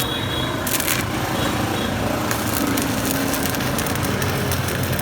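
Stick welding arc on a 4 mm electrode from a Jasic ARC 200A inverter welder, crackling and sizzling steadily, with a steady low hum underneath.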